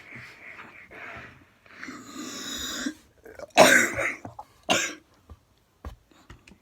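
A person coughing: two sharp coughs, about a second apart, a little past the middle, after some breathy, hissing sounds.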